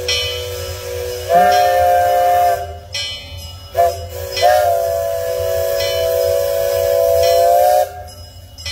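Miniature steam locomotive's chime whistle blowing several notes at once, in separate blasts. A held blast swells louder about a second in, a short toot follows, then a long blast of about three seconds cuts off near the end.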